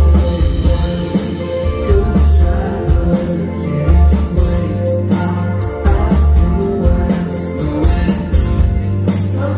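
A rock band playing live: electric guitars, bass, keyboard and drum kit, with a steady beat and repeated cymbal hits. Heard from among the audience in a club.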